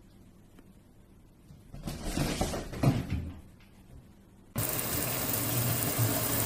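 A short burst of rustling and knocking, then about halfway through a sudden switch to a steady rush of running water, as from a shower or tap.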